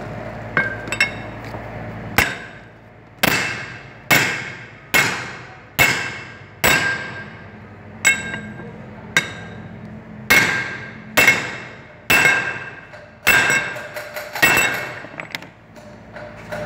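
A heavy hammer striking a steel driving disc on top of a bush, pressing it into the small end of a Caterpillar 3516 connecting rod. After a couple of light taps come about thirteen sharp metallic blows, roughly one a second, each with a short ring.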